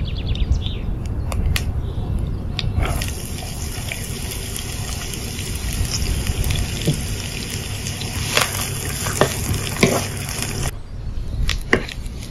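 Chopped onion sizzling in hot oil in a nonstick wok. The crackling sizzle starts about three seconds in and stops sharply near the end, with a few clicks of a wooden spoon against the pan.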